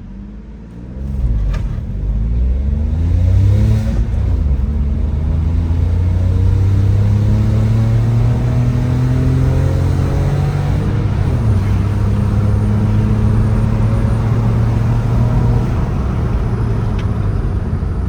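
Volkswagen Polo's remapped 1.0 litre MPI three-cylinder petrol engine accelerating hard, its pitch rising through the revs, with gear changes about 4 seconds in and again about 11 seconds in, then holding a steady pull.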